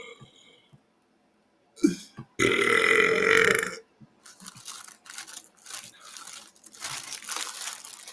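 A man's long, loud belch about two and a half seconds in, lasting about a second and a half. It is followed by several seconds of crinkling and rustling.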